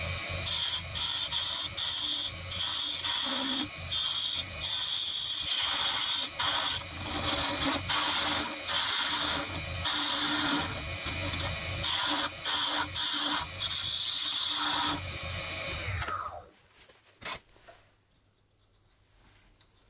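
Turning tool cutting the end of a spinning mahogany blank on a Record DML320 wood lathe: a scraping cut in many short strokes with brief pauses between them, over the lathe's low motor hum. About sixteen seconds in the cutting and the hum stop, followed by a couple of light knocks.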